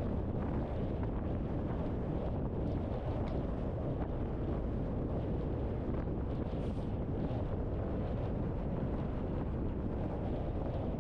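Steady low rumble of a car driving, with road and wind noise and no change in level.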